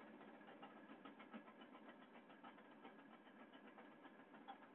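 Near silence: a faint steady background hiss with a few soft ticks.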